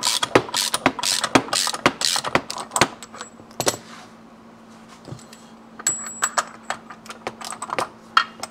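Crankshaft installer tool being turned by hand, drawing a Yamaha AT2 125 two-stroke crankshaft into its main bearing in the aluminium crankcase. It makes a run of sharp mechanical clicks, about two a second, then pauses about four seconds in and resumes with more uneven clicks near the end.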